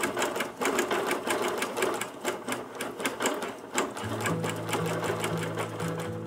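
Bernina Q20 sit-down longarm quilting machine stitching through a couching foot with its stitch regulator on, in a quick, even needle rhythm at a slow idle speed of 250. Background music with steady tones comes in about four seconds in.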